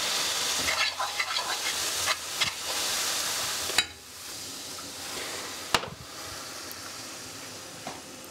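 Garlic and smoked paprika in hot olive oil sizzling in an aluminium pan just after a splash of water, with a metal spoon stirring and clicking against the pan. The sizzle is strong for the first four seconds, then drops to a quieter hiss as the water cools the oil.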